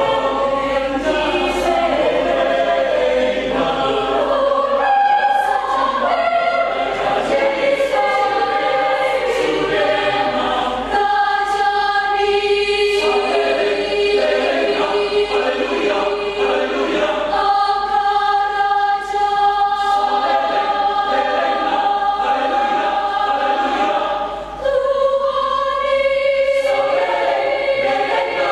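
Church choir singing, with long held chords a little before the middle, again just after the middle, and near the end, broken by a short breath about three-quarters of the way through.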